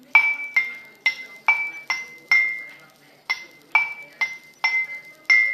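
Glass cup filled with water being struck in a quick run of sharp clinks, each ringing briefly at one of two alternating pitches, about two strikes a second with a short pause partway through.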